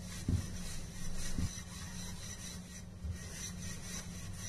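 Wooden rolling pin rolling out stuffed paratha dough on a round rolling board: a soft rubbing with a few light knocks.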